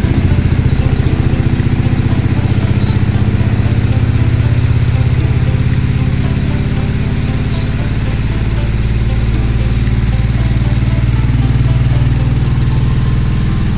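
Sharp Gigawash twin-tub washing machine's spin dryer spinning a load of clothes at speed: a loud, steady motor hum with a fast pulse, the dryer now spinning properly on its replaced spin motor, brake and capacitor. The level drops slightly about six seconds in, then holds steady.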